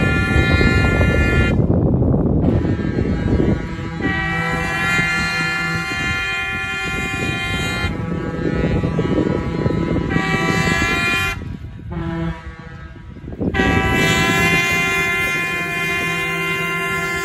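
Air horn of the approaching Nebraska Zephyr streamlined train sounding in long blasts: one ends a couple of seconds in, the next holds for about nine seconds, and another starts near the end. A low rumble lies under the first few seconds.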